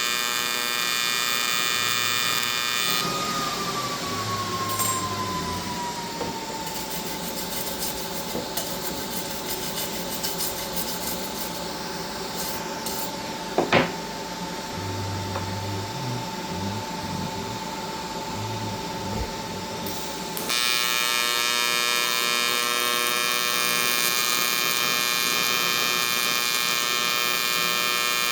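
AC TIG welding arc on aluminum, buzzing steadily. For most of the middle the buzz turns rougher and noisier, with one held tone, and it returns to the even buzz near the end. A single sharp click sounds about halfway.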